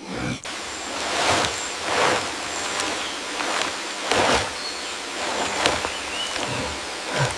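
Running water, a steady rush with soft splashes about every second or so.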